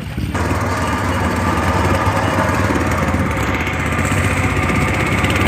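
Small boat's engine running steadily, a low even drone that comes in suddenly just after the start.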